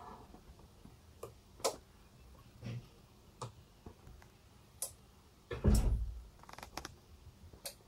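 Sparse, irregular small clicks and taps, with one heavier low bump a little past halfway.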